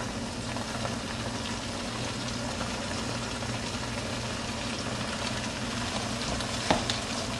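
Spaghetti in tomato-and-lobster sauce simmering in a wok over a gas burner: a steady low sizzle, with a steady low hum beneath it.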